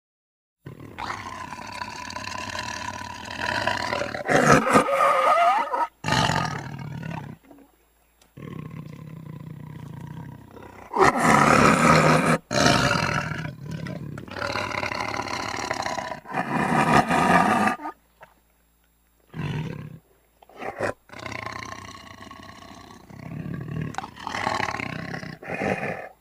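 Tiger roaring and growling, a series of long, loud roars separated by short pauses, with a few shorter grunts in between.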